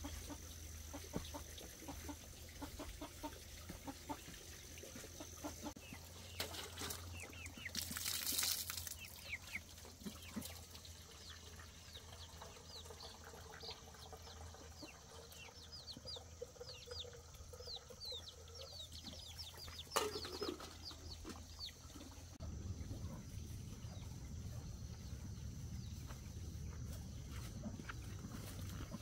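Chickens clucking, with a long run of short, high, falling cheeps through the middle. A brief rush of noise comes about eight seconds in, and a single sharp knock about twenty seconds in.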